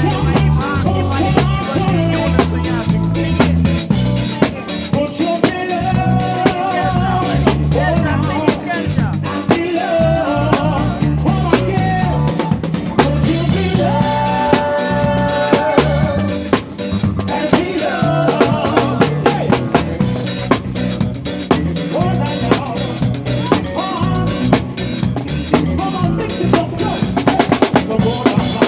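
Live band playing, led by a drum kit with snare, rimshot and bass-drum strokes under a steady bass line and melody instruments. In the last few seconds the drum strikes come thicker and faster.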